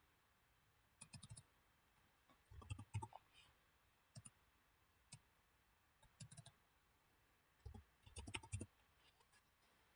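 Computer mouse clicks and keyboard keystrokes, faint and scattered, coming in small clusters a second or two apart.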